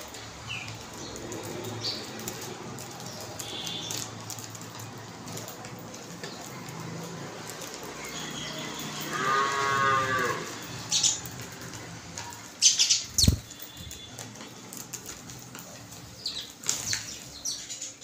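A cow moos once about nine seconds in, one long call of about a second and a half. Around it come house sparrows' faint chirps and wing flutters, and near thirteen seconds a quick cluster of sharp knocks and wing flaps as the flock takes off.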